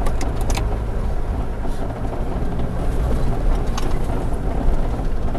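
Four-wheel-drive vehicle driving on a rough dirt track: a steady low engine and road drone, with a few short clicks and rattles near the start and again a little before four seconds in.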